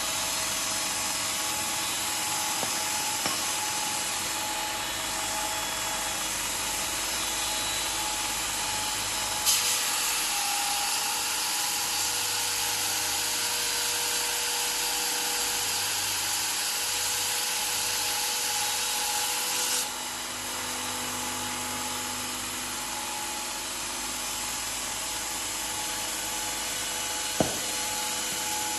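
Metal sanding and polishing machine running steadily. A louder, higher hiss sets in about a third of the way in, lasts about ten seconds, then drops away. There are two sharp clicks, one where the hiss begins and one near the end.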